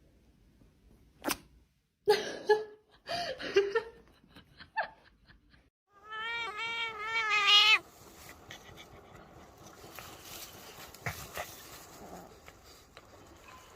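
An animal's call: a few short cries, then a drawn-out wavering cry lasting nearly two seconds.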